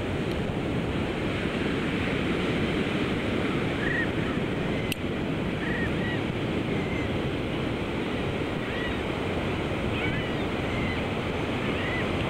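Ocean surf breaking steadily on a sandy beach, with short, high chirping calls of small shorebirds repeating over it every second or two.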